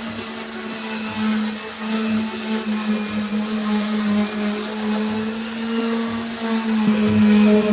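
Electric power sander running steadily on a wooden speaker box, its motor hum wavering slightly in pitch as it is pressed and moved over the surface.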